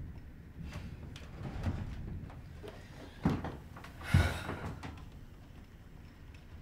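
A chair being pulled out and knocking as a person sits down at a table, with two sharp knocks about three and four seconds in, over a low rumble.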